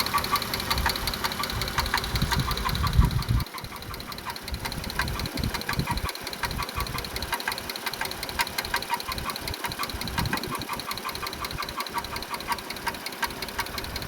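2016 Dodge Grand Caravan's 3.6 L Pentastar V6 running with a fast, even ticking knock. The engine runs louder for about the first three and a half seconds, then settles lower. The mechanic traces the knock to the valvetrain and means to look at the rear bank's camshafts.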